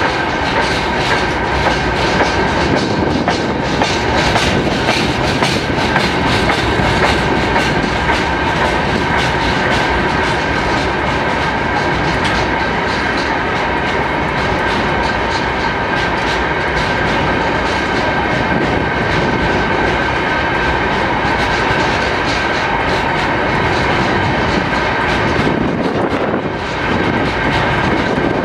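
Empty timber wagons of a long freight train rolling past close by: a steady clatter of wheels over the rail joints, with a steady high ringing tone held above it.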